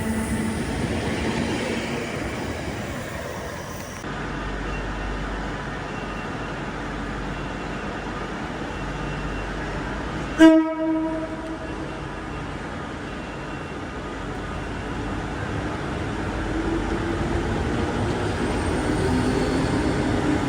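Train noise: a steady rumble throughout, cut by one short, sharp train-horn toot about halfway through. A low hum rises near the end.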